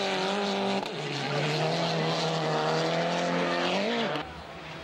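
Turbocharged four-cylinder World Rally Car engine held at high revs as the car slides through a snowy corner. The revs drop briefly about a second in, then hold and climb slowly. Near the end there is a short blip, then the engine note falls away sharply as the car lifts off and moves away.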